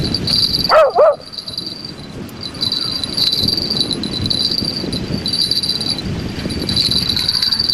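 A dog barks twice in quick succession about a second in, over a steady high chirring of crickets.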